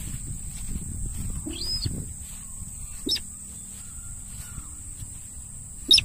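Footsteps swishing through grass for the first two seconds, then a few short high chirps and a sharp cry right at the end.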